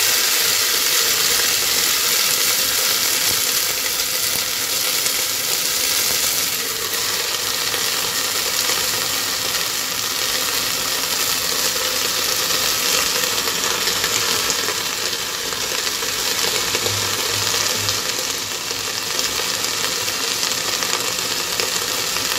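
Freshly washed mustard, spinach and fenugreek leaves sizzling steadily in hot mustard oil in a pressure cooker. The water on the wet greens hisses as it meets the oil.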